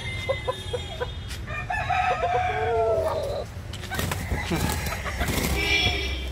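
Chickens clucking, then a rooster crowing in one long call of about a second and a half. About four seconds in comes a brief flurry of wing flapping and scuffling.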